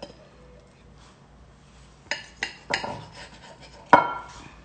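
Metal fork and knife clinking against a ceramic plate while an omelette is cut: quiet at first, then a few sharp ringing clinks from about two seconds in, the loudest near the end.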